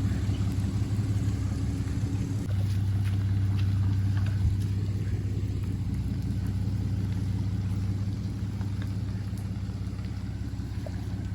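Motor vehicle engine running steadily, a low even hum.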